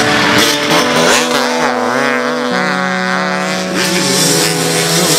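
Dirt bike engine revving up and down in quick waves, over steady held tones underneath.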